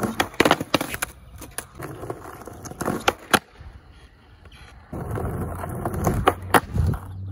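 Skateboard trying 50-50 grinds on a dry, unwaxed concrete curb: wheels rolling on asphalt, with repeated sharp clacks and knocks as the board pops and the metal trucks hit the curb edge. The knocks bunch up in the first few seconds and again near the end, with a quieter pause in between.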